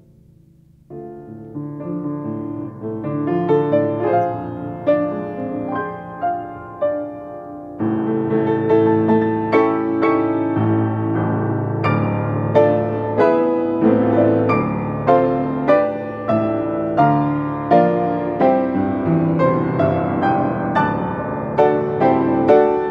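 Solo upright piano being played: after a brief pause the playing begins about a second in, becomes louder about eight seconds in, and later carries strongly accented chords about once a second.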